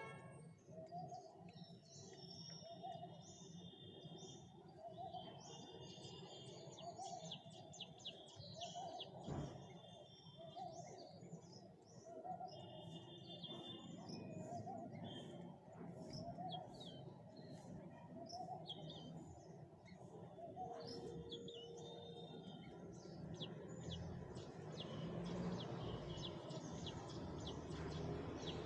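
Birds chirping and calling, with short high trills and a lower call repeating about every second and a half, over a steady background noise that grows louder near the end.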